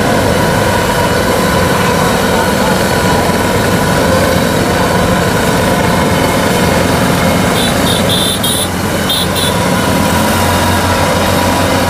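Kubota DC-93 combine harvester's diesel engine running steadily as the machine travels on its rubber crawler tracks along a paved road. A few short high-pitched beeps come about eight seconds in.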